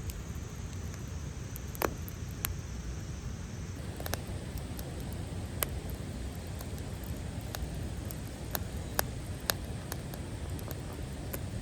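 Wood fire crackling, with sharp pops at irregular intervals over a steady low rumble.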